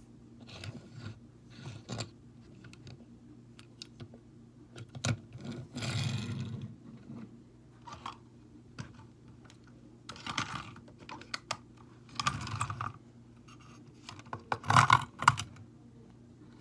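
Small die-cast toy cars and a toy box truck being handled and set down on a wooden tabletop: scattered clicks, knocks and rustling, with a louder cluster of knocks near the end.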